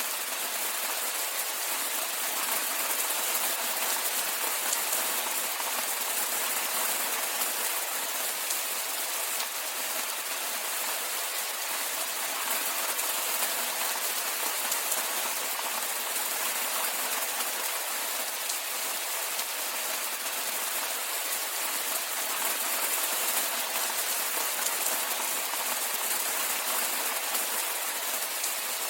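Steady rainfall: an even hiss of many small drops, with fine scattered pattering and no change in intensity.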